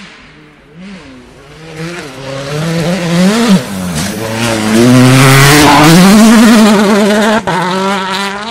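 A Hyundai World Rally Car's turbocharged four-cylinder engine revving hard, its pitch climbing and then dropping at each gear change as the car approaches. It is loudest about two-thirds of the way in, with one sharp crack shortly before the end.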